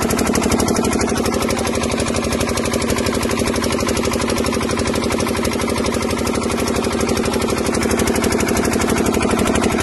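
Engine of a water pump running steadily, with an even, fast firing beat.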